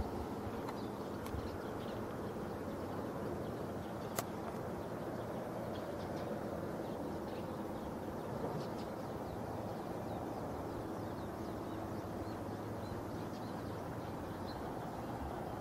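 Steady outdoor background noise with faint bird chirps scattered through it, and a single sharp click about four seconds in.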